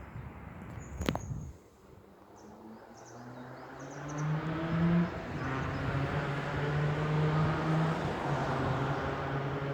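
A motor vehicle engine comes up, rising in pitch, then runs steadily and close, over outdoor background noise, with a sharp click about a second in.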